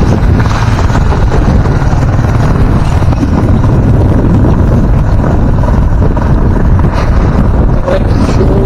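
Wind buffeting the microphone of a camera riding on a moving motorcycle, a loud, steady rumble with the bike's running noise mixed in underneath.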